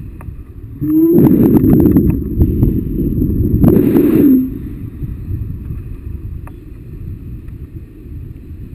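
Wind rushing over the microphone of a selfie-stick camera in tandem paragliding flight: a steady low rumble, with a much louder, crackling gust buffeting the microphone for about three and a half seconds, starting about a second in.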